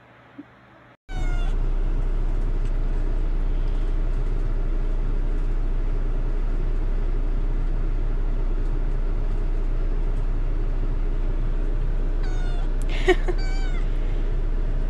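Kittens meowing in short, high-pitched, falling calls: one about a second in, then a cluster of several near the end. Under them runs a steady low rumble that starts suddenly about a second in.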